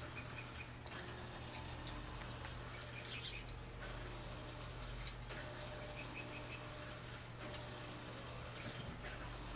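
Room tone: a steady low hum with scattered small clicks and ticks and a few short, faint high chirps.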